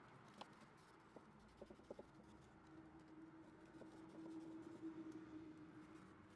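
Faint scratching and light clicks of a large kitchen knife slicing through the baked crust of a layered apple-filled cookie slab against a stone countertop. A faint steady hum runs through the second half.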